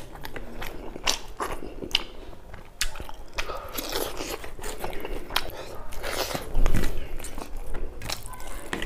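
Close-miked chewing of buffalo meat and rice, with many wet clicks from the mouth, and fingers working rice through gravy on a steel plate. A dull thump stands out about two-thirds of the way in.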